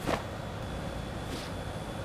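Taekwondo uniform sleeves snapping as the arms whip through a turning block: a sharp swish just after the start and a fainter one about a second and a half in, over a steady low outdoor background.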